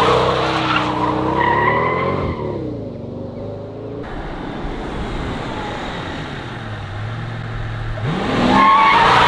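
Mercedes-Benz S600 W220's twin-turbo V12 revving hard as the rear tyres spin in a smoky burnout, the engine note climbing and then falling away as the car pulls off. After a quieter stretch the revs rise sharply again about eight seconds in, and the engine turns loud near the end.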